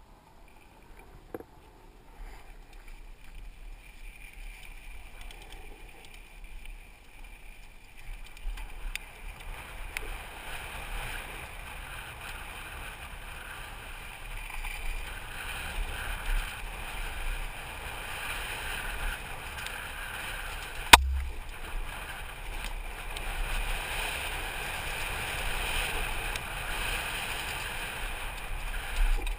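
Mountain bike riding down a rough dirt trail, heard from a helmet-mounted camera: wind on the microphone and the rattle of the bike and tyres over the ground. It grows louder as the bike picks up speed from about a third of the way in. A single sharp knock about two-thirds of the way through is the loudest sound.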